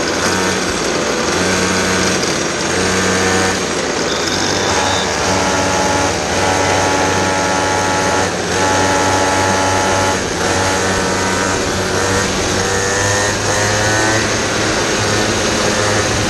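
Onboard sound of a kid kart's small two-stroke engine running on the move, its pitch rising and falling as the throttle is opened and eased, with a few brief lifts.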